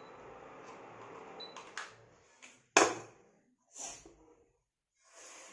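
A few sharp clicks and knocks over faint room hiss, the loudest about halfway through, followed by a brief dead silence.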